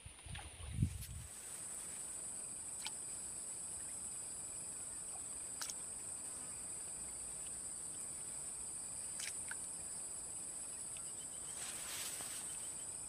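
Steady high-pitched chirring of insects, unbroken throughout. A low thump about a second in is the loudest moment, and a few faint clicks follow.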